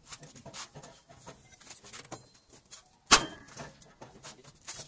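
Faint clicks of steel steering parts being handled on a truck's front axle, then about three seconds in a single sharp metal-on-metal strike that rings briefly, followed by a few light clinks.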